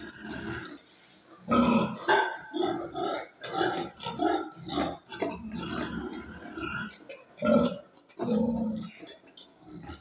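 Duroc pigs grunting during mating, in a rapid string of short grunts about two or three a second, with a few louder grunts near the start and again near the end.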